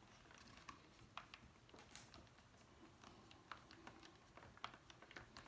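Faint, irregular small clicks and ticks of a T8 Torx screwdriver turning a screw into a BMW iDrive controller's rotary knob.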